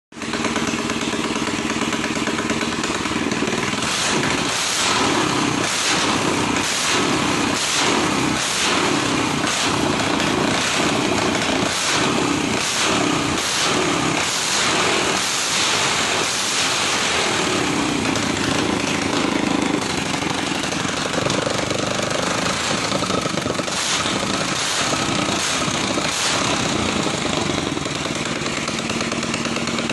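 Racing engine idling, then revved in quick repeated blips about once a second, held in a longer rev, blipped again a few times and settling back to idle.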